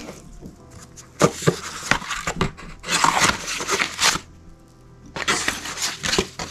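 Large, stiff old photographic prints rustling and crackling in bursts as they are lifted and bent out of a cardboard box, with a few sharp clicks about a second in.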